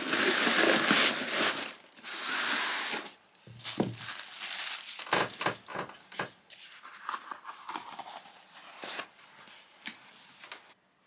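Packaging crinkling and rustling loudly for about three seconds as it is handled. This is followed by scattered lighter rustles and taps as the paper wallpaper roll is handled and unrolled, stopping abruptly near the end.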